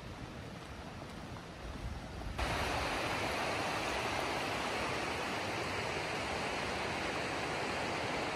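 Rushing mountain river: a steady, even rush of water over rocks that comes in suddenly and loud about two and a half seconds in. Before that there is only a fainter hush with a low rumble of wind on the microphone.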